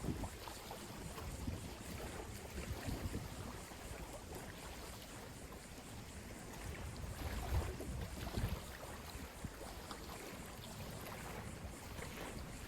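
Ocean waves washing ashore, with wind buffeting the microphone in low rumbling gusts, the strongest about halfway through.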